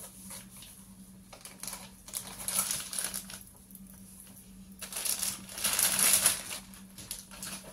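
Clear plastic wrapping crinkling and rustling as it is handled and pulled off a walking stick, in two main bouts, the second, about five to six seconds in, the louder.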